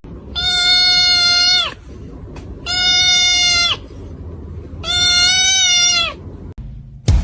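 A cat meowing three times in long, drawn-out calls, each held at a steady pitch for about a second before it drops off at the end.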